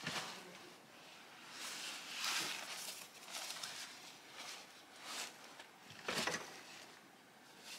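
Footsteps on a gravelly path and the rustle of a large hiking backpack being carried and set down on a lean-to's log floor, in irregular scuffs with a louder thump about six seconds in.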